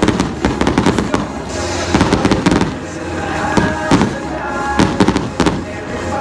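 Aerial fireworks bursting in a rapid string of sharp bangs and crackles, with loud show music playing under them.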